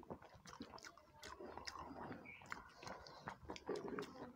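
Quiet close-miked eating by hand: chewing and many small mouth clicks, with fingers mixing rice on plates.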